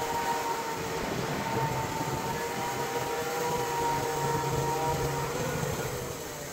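Portable band sawmill running, its engine and band blade making a steady whine and drone. About five seconds in the steady tones fade and the sound drops off as the pitch starts to fall.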